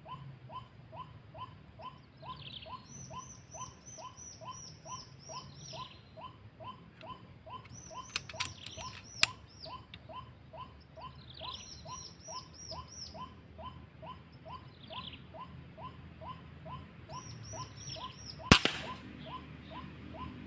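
Animal calls: a low note repeated steadily about three times a second, under recurring high chirping trills. A few sharp clicks about eight to nine seconds in, and a single loud sharp crack near the end.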